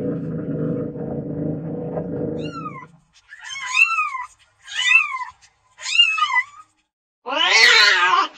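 Domestic cat meowing: after a low, steady rumble, four short rising-and-falling meows about a second apart, then a louder, longer meow near the end.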